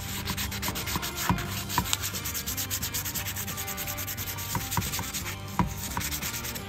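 Sandpaper rubbed by hand in quick back-and-forth strokes over a steel Magura MDR-P bicycle disc brake rotor, with a few sharper scrapes along the way. The rotor's braking surface is being lightly scuffed to remove contamination, so it will not re-glaze the cleaned brake pads.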